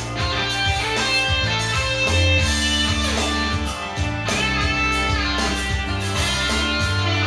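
Instrumental break of a rock song with no vocals: guitar playing sustained melodic lines over bass and drums.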